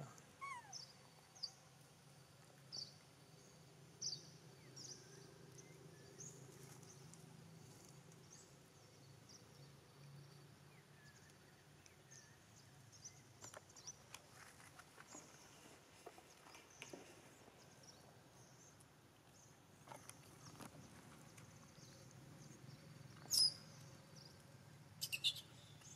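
Faint outdoor background: a low steady hum with scattered short high chirps and a few soft clicks, then two louder, sharp high chirps near the end.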